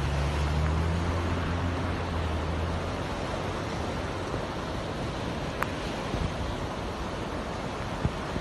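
Steady rushing noise of floodwater and heavy rain. A low hum, like an engine, runs under it for the first three seconds or so and fades away.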